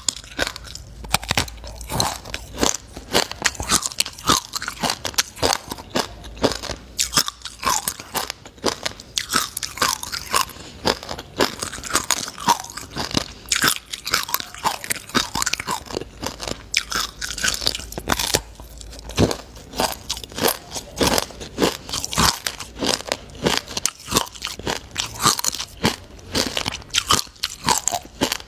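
Close-miked crunching and chewing of a clump of black sesame seeds: a dense, unbroken run of small crackling bites.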